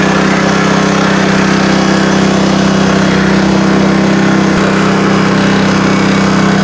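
A gas engine on sawmill equipment running steadily at a constant speed.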